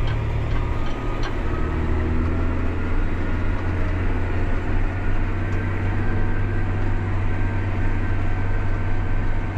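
John Deere 8300 tractor's six-cylinder diesel running steadily under load while working ground, a deep even drone; the engine is not struggling for power. A few faint ticks in the first second or so.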